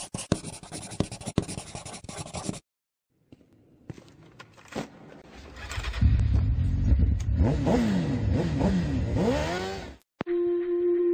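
Scratchy pen-on-paper sketching noise, then after a short gap a motorcycle engine revving, its pitch rising and falling several times over a low rumble. Near the end a steady held musical tone comes in.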